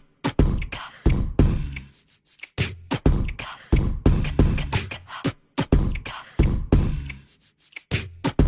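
Background music with a strong, punchy beat: repeated sharp percussive hits with heavy bass.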